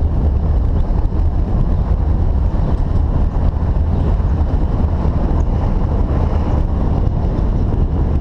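Steady low rumble of a car driving, with wind buffeting the microphone.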